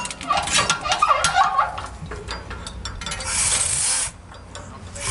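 Steel drop-tower rig clattering and clinking as an 80 kg test mass is caught by a 120 cm nylon sling tied with an overhand knot, with rapid metallic clicks and squeaks that thin out after about two seconds. A hissing burst follows about three seconds in.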